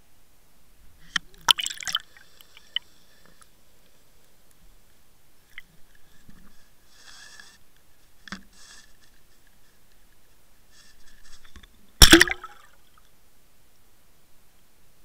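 Water heard through a Water Wolf underwater camera's housing: gurgles and splashes with sharp knocks and clicks. A cluster comes between one and two seconds in, smaller ones come around six to nine seconds, and the loudest comes about twelve seconds in.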